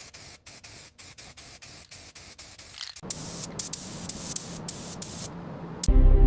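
Spray gun hissing in rapid short bursts, several a second, then in louder, longer sprays from about three seconds in. Music with steady tones starts near the end.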